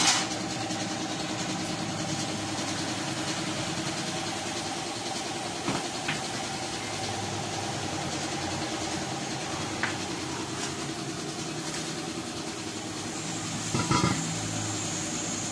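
A belt-driven piston air compressor runs with a steady, pulsing drone. A few short knocks of tire and tools being handled sound over it.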